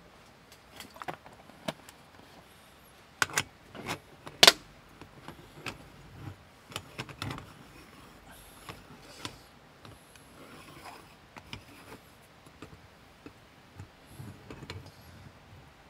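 Moka pot being put together: sharp metal clinks and knocks as the parts are set in place, loudest twice about three and four and a half seconds in, then lighter clicking and scraping as the upper chamber is screwed tightly onto the base.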